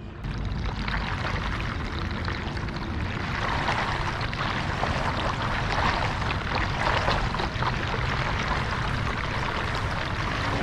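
Water gurgling and splashing steadily around a small camera towed at the surface on a line behind a paddling kayak.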